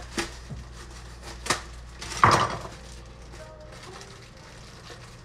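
Cookware and utensils clattering: a few sharp knocks, the loudest a ringing clatter a little past two seconds in.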